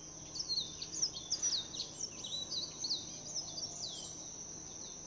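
Small birds chirping outdoors: a run of quick, high, downward-sliding chirps, several a second, that thin out about four seconds in, over a steady high-pitched hum.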